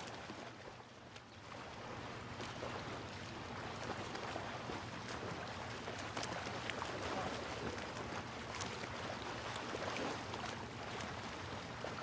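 Gentle water ambience: lapping water with scattered small splashes and wind noise, over a faint steady low hum.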